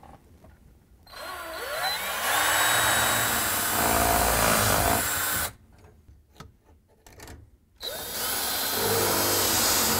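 Craftsman 19.2-volt cordless drill boring pilot holes through a dishwasher's side mounting bracket into the wooden cabinet side. It makes two runs: the first starts about a second in and lasts about four seconds, and the second starts near the end. The motor's pitch rises as each run spins up.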